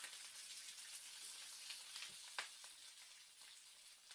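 Hot cooking oil sizzling in a wok: a steady fine crackle with a few sharper pops.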